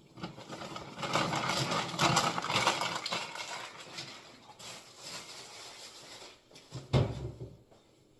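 Food-prep handling noises at a kitchen counter: a stretch of rustling and scraping for about three seconds, then lighter handling and a single sharp knock about seven seconds in.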